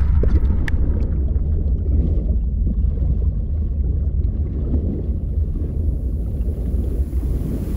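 Deep, steady rumbling drone of film sound design, with a few sharp crackles in the first second.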